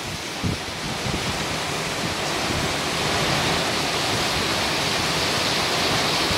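Heavy rain pouring down in strong wind: a steady loud hiss that grows slightly louder about halfway, with a brief gust buffeting the microphone just after the start.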